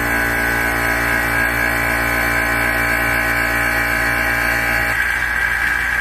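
Vacuum pump running steadily as it pumps the air out of a vacuum chamber, with a strong low hum and a stack of steady tones. About five seconds in the lower tones drop away and the sound changes as the chamber pulls down.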